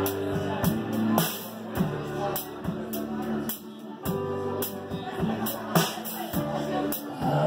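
Live rock band playing an instrumental passage without vocals: acoustic and electric guitars, keyboard, bass and drums, with a steady beat of drum and cymbal hits.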